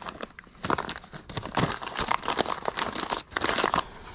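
Crumpled paper packing crinkling and rustling in irregular bursts as wrapped items are handled and unwrapped.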